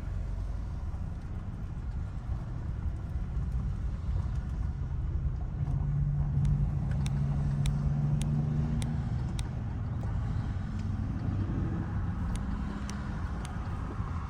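Mitsubishi Outlander driving, heard from inside the cabin: steady engine and road rumble, with the engine note rising as the car accelerates about six seconds in and again near the end. A regular ticking, about two a second, runs through the second half.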